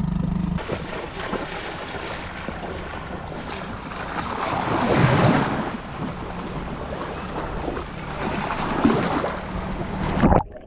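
Wind buffeting the microphone over splashing water from a small boat. A motor's steady hum cuts off about half a second in, and the wind and water swell louder around the middle.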